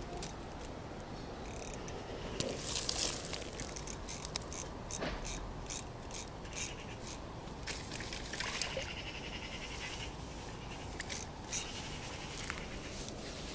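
Irregular snapping and rustling of dense riverbank plants trampled underfoot, with about a second of fast ratcheting ticks from a spinning reel being cranked near the middle.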